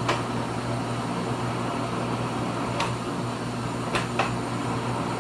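Pratt and Whitney lathe running under power with its feed engaged: a steady low machine hum, with a few light clicks from the gearing.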